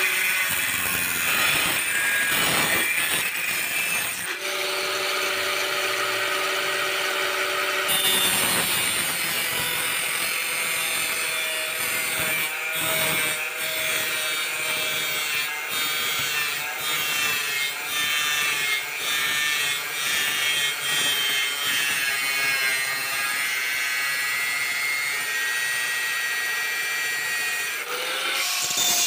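Handheld angle grinder with a thin cutting disc running and cutting through stair-nosing tile trim, one steady loud grinding whine through the whole stretch, its tone shifting as the disc bites into the trim.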